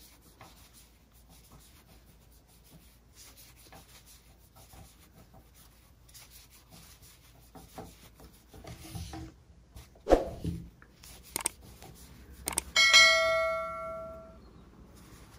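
Faint rustling of yarn drawn through and around a crochet hook. Near the end there are a few sharp knocks, then a single bell-like chime that rings out and fades.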